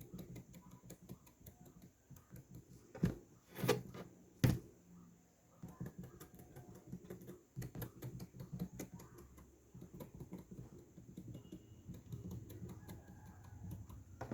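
Handling noises from small objects: a steady run of light taps and clicks, with three louder knocks about three to four and a half seconds in.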